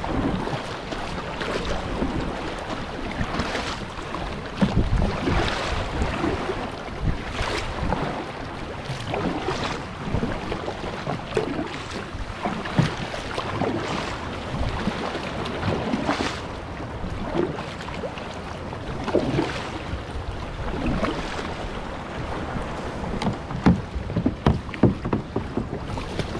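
Kayak paddle strokes in seawater, a splash about every second, over water sloshing at the hull and wind on the microphone. Near the end come several louder splashes as a leg goes over the side into the shallows.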